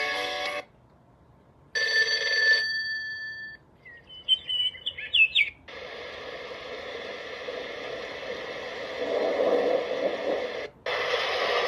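A wake-up light alarm clock's built-in alarm sounds are played one after another through its small speaker as the alarm sound is chosen. A music clip cuts off, then come a short ringing bell tone, a run of bird chirps and a long steady hiss, each separated by brief gaps.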